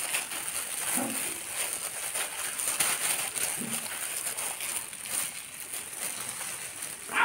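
Disposable plastic gloves crinkling and rubbing in wet, dye-coated hair as the hair dye is worked in by hand, an irregular soft rustle.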